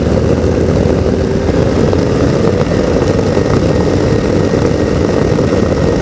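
A small two-stroke ultralight engine and its propeller running steadily at cruise power in flight, a loud, even drone with wind noise.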